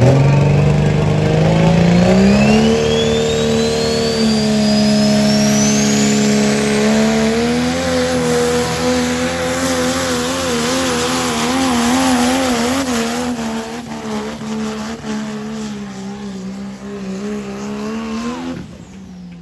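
Modified diesel pickup truck pulling a sled at full throttle. The engine revs up over the first few seconds while a high whistle climbs steadily in pitch. It then runs hard with its pitch wavering rapidly and grows fainter as the truck moves away, dropping off sharply near the end.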